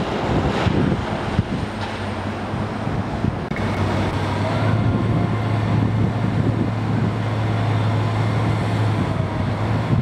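Diesel engine of a long-reach demolition excavator running with a steady low drone that gets stronger about three and a half seconds in, over a background rumble of city traffic.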